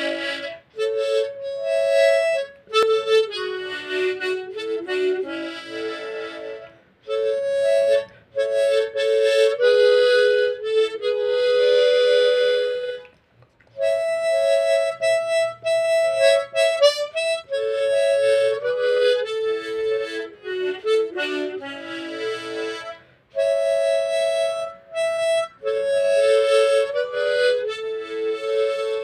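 Harmonica playing a slow, lyrical ballad melody in phrases of a few seconds, with brief pauses between phrases.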